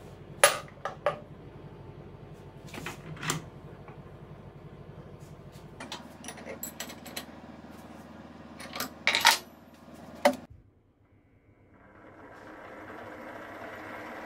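Metal clinks and clicks of a drill chuck on its arbor being fitted into a milling machine's spindle and tightened with a wrench, the loudest just after the start and about nine seconds in. Near the end the machine's motor starts, swells up and runs steadily.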